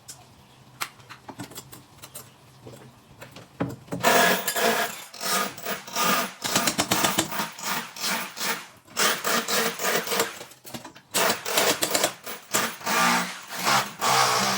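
A tool working wood in repeated loud rasping bursts, starting about four seconds in after a few light clicks.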